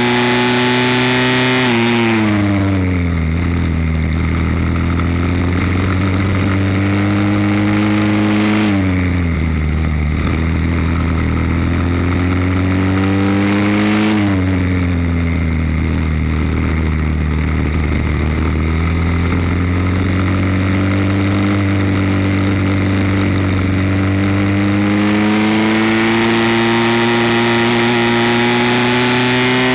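Briggs & Stratton World Formula single-cylinder four-stroke kart engine at racing speed, its revs climbing steadily and then dropping sharply three times, about two, nine and fourteen seconds in, as the driver lifts off for corners. After the last drop it builds again in one long climb.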